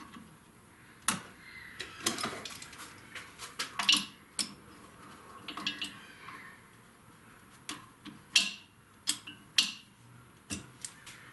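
Metal bar clamps being set on a drill press table and tightened down on a wooden piece: a string of separate metal clanks and clicks, the loudest about four seconds in.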